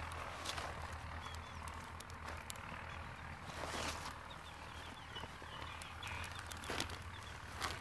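Freshly lit dry sticks burning in a pit fire, giving scattered sharp crackles over a steady low rumble, with a few faint short chirping calls in the background.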